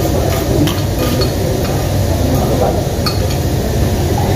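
Spoons and bowls clinking lightly several times as people eat soup, over a steady low hum of the room.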